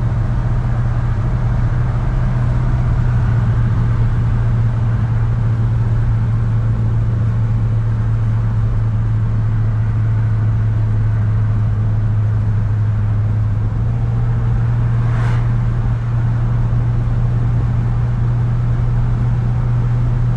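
1966 Ford F100 pickup's 302 V8 running steadily at highway cruising speed, a low, even drone with road noise, heard from inside the cab.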